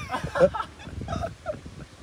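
Short bursts of men's voices making sounds without clear words, loudest about half a second in.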